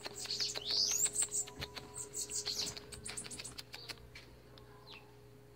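Bananaquits (sibite) chirping: a string of short, high calls with one rising whistle about a second in, mixed with quick clicks, dying away after about three or four seconds.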